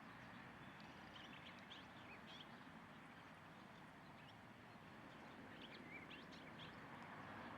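Faint, scattered short bird chirps over a low steady background hiss.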